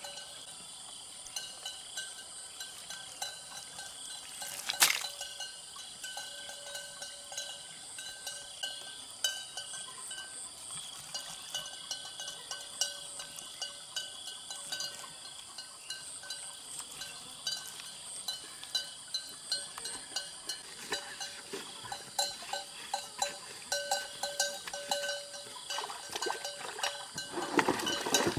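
Outdoor ambience: a steady high-pitched drone with many light metallic clinks repeating at an uneven pace, a single sharp knock about five seconds in, and a louder noisy burst near the end.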